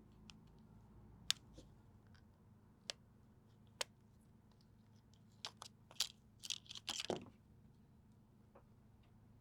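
Small sharp clicks and taps from handling and fitting small smartphone parts: a few single clicks spaced a second or so apart, then a quick cluster of clicks and short scrapes about six to seven seconds in.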